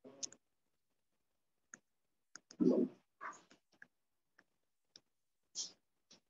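Scattered light clicks and taps from writing an annotation on screen at a computer, with a louder knock about two and a half seconds in.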